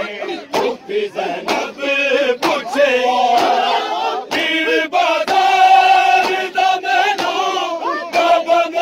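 A large crowd of men chanting a mourning lament together, with one long held note past the middle. Repeated sharp slaps of hands striking chests in matam cut through the chanting.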